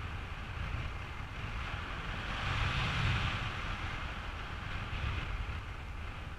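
Wind rushing over the microphone in paragliding flight, a steady rumble and hiss that swells about halfway through and again briefly a little later.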